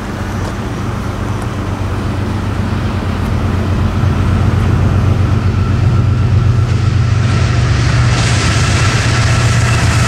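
Norfolk Southern diesel locomotive approaching, its low engine drone growing steadily louder. About seven seconds in, a hiss and high-pitched ringing tones join in as the train draws near.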